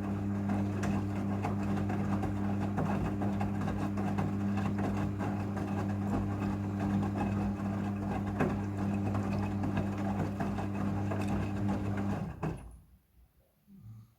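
Front-loading washing machine running during its rinse cycle: a steady motor hum over a rushing, churning noise that stops abruptly about twelve seconds in.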